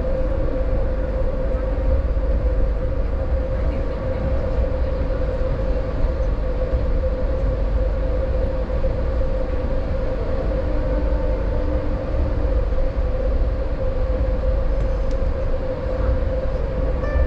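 Train running steadily on the rails, heard from inside a moving coach: a continuous low rumble of wheels on track with a steady humming tone over it.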